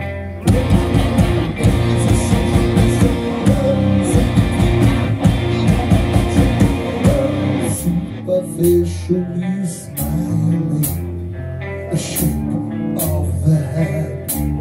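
Live metal band playing an instrumental passage with electric guitar: a dense, loud stretch from about half a second in until about eight seconds, then a sparser section of bass notes and guitar.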